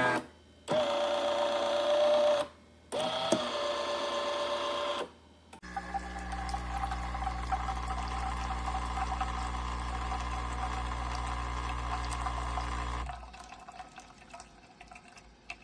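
Café Affetto automatic espresso machine running: a motor whirs in two short runs, each spinning up to a steady pitch, then the pump hums steadily with liquid hiss for about seven seconds while brewing, and stops near the end.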